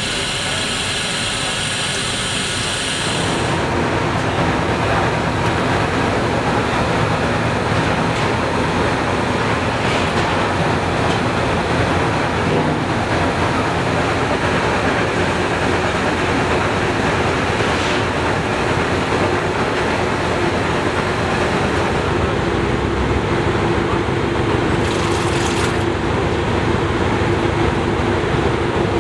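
Water running into a cauldron for about three seconds, then the steady rumbling roar of a large multi-armed gas burner firing under it.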